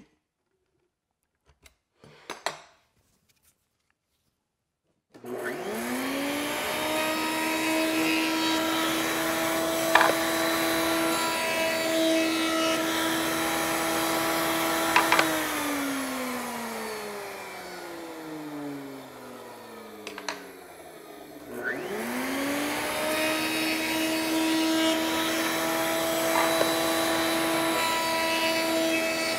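Table-mounted router with a roundover bit: after a few small handling clicks, it is switched on about five seconds in and spins up to a steady high whine. It is switched off midway and winds down over several seconds, falling in pitch, then is switched on again and spins up to run steadily, between bullnosing passes on a board edge.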